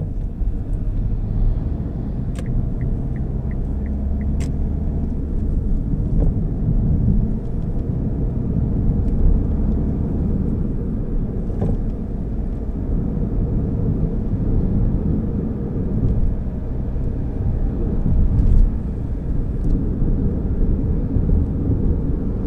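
Steady low rumble of a car driving, with tyre and engine noise heard from inside the cabin. A few faint clicks come a few seconds in.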